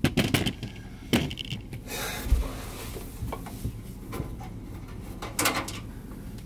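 Hands handling a computer tower case and the cables at its back: a few sharp clicks and knocks with some rustling, and a low thump a little over two seconds in.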